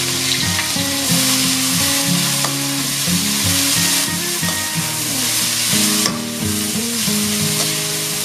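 Water spinach stir-frying with garlic in a hot wok over high heat: loud, steady sizzling, with a spatula tossing and scraping the stems against the pan. A melody of background music plays underneath.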